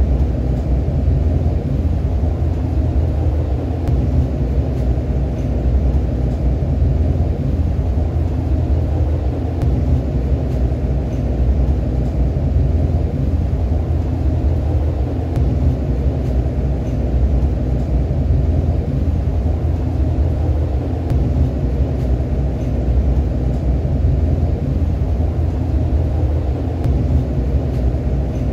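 REM light-metro train heard from inside the passenger car while it runs: a steady low rumble of wheels and motors on the track, unchanging throughout.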